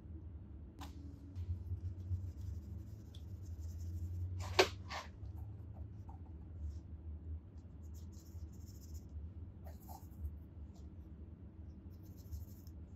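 Paintbrush scratching and dabbing paint, in short strokes, on a canvas textured with collaged straw and paper, along with scattered light clicks. A sharp click comes about four and a half seconds in. A low steady hum runs underneath.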